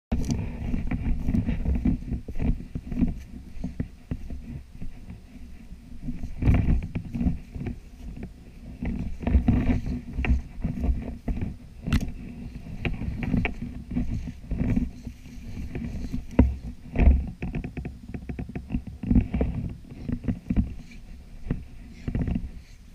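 Gorse and scrub scraping and rustling against a body-worn camera as someone pushes through dense brush, in irregular short swishes over a heavy low rumble of handling noise.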